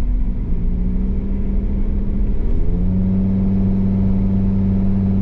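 Car engine and road rumble heard from inside the moving vehicle. The engine note rises and gets louder about halfway through as it speeds up, then holds steady.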